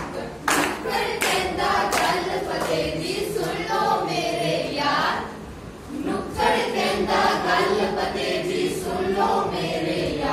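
A group of young men and women singing together in chorus while clapping their hands in time, the claps sharp and regular about every two-thirds of a second in the first couple of seconds. The singing drops away briefly about halfway through, then picks up again.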